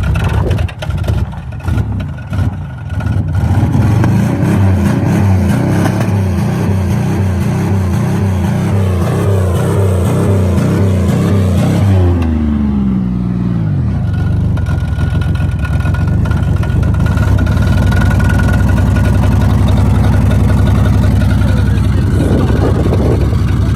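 A rod-knocking Oldsmobile engine revved and held at high revs, then falling back and running steadily at lower speed. A few sharp knocks come in the first few seconds.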